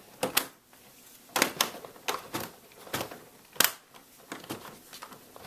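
Plastic laptop screen bezel being pressed back onto the lid, its snap clips clicking into place in a series of sharp, irregular clicks with handling noise between.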